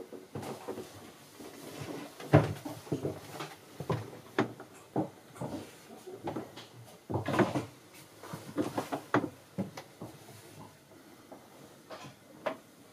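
Irregular knocks and clunks inside a small wooden yacht cabin, the loudest about two and a half seconds in and again about seven seconds in, thinning out near the end.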